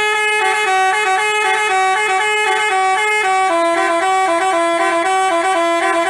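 Telolet basuri multi-tone horn playing a continuous melody, the notes stepping up and down several times a second.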